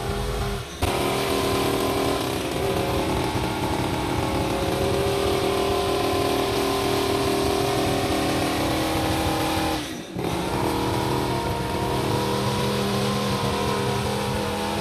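Backpack brush cutter engine running steadily under load while trimming grass, with two short breaks in the sound, about a second in and about ten seconds in.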